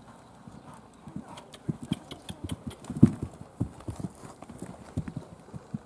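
Horse cantering on a sand arena: a run of dull hoofbeats, several a second, growing louder and loudest about halfway through as it passes close by.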